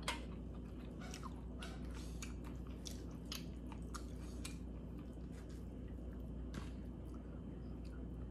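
Close-miked eating sounds as a person chews chicken noodle soup: wet mouth clicks and smacks scattered throughout, over a steady low hum.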